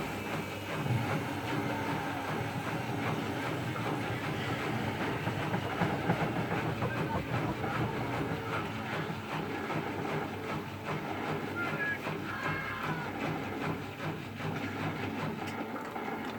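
Siemens Extraklasse F1300A washing machine running: a steady rumble from the turning drum, with many small rapid knocks through it.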